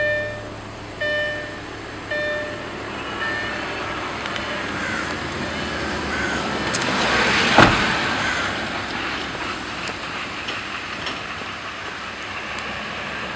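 A vehicle passing by: a swell of road noise builds to a sharp peak a little past halfway, then slowly fades. A few short musical notes sound near the start.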